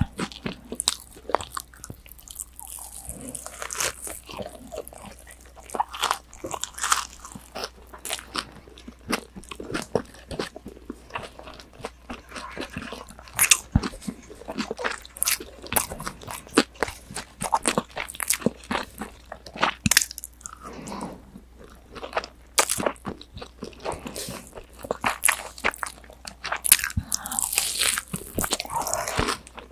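A person biting and chewing crunchy breaded fried pork cutlet (tonkatsu) right at a binaural microphone: a dense run of crisp crackling crunches.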